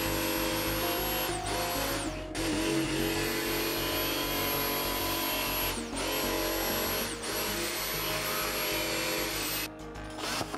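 Electric jigsaw cutting through plywood, its motor running with a steady high whine that sags and briefly drops out four times, then cuts off near the end.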